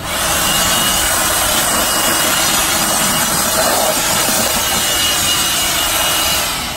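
18-volt cordless blower running steadily at full speed, a loud rush of air with a thin high motor whine, blowing dust out of an HVAC unit's electrical compartment and burners; it winds down near the end.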